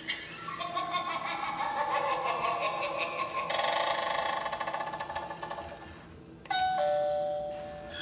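Gemmy eyeball novelty doorbell playing its sound effect: warbling electronic tones for about five seconds, then a two-note ding-dong chime about six and a half seconds in.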